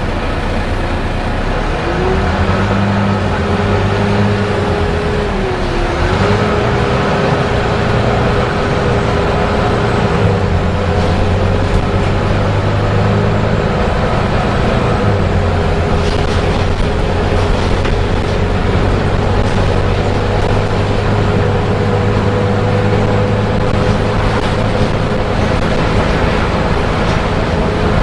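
Volvo B9TL double-decker bus under way, its six-cylinder diesel engine running with notes that shift as it changes gear. From about two seconds in a steady whine rises and holds, dipping briefly near six seconds: the engine's cooling fan running hard, the 'hoover' sound these buses make.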